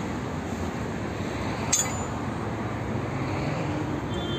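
A single sharp metallic clink of a steel tool against the car's wheel hub or brake drum, about two seconds in, over a steady background hum of outdoor traffic.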